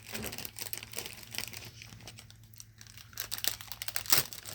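Irregular small clicks and rustles of hands handling the plastic drain pump housing while fitting its rubber O-ring, with one sharper click a little after four seconds in.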